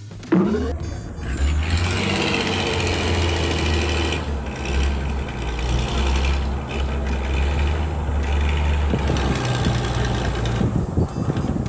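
A heavy vehicle's engine running steadily with a low rumble, like a truck or digger sound effect.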